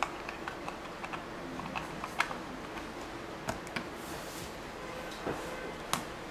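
Light clicks and taps of hard plastic drone battery packs (DJI Phantom 4) being handled on a glass tabletop, with a few sharper clicks standing out about two seconds in and near the end.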